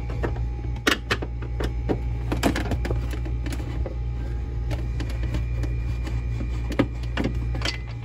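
Phillips screwdriver backing out the screws of a freezer's plastic ice maker bracket: scattered light clicks and ticks over a steady low hum.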